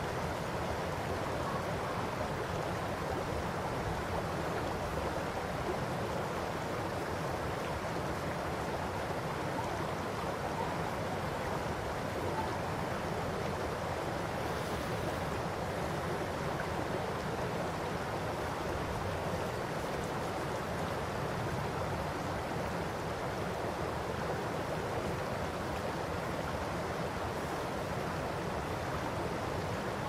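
Shallow river babbling steadily over a stony, gravel bed: an even, unbroken rush of running water.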